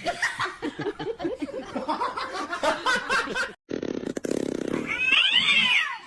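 Quick, choppy bursts of laughter-like voice sounds, then after a cut a short low buzzing noise and a few high rising-and-falling animal cries, cat-like, near the end.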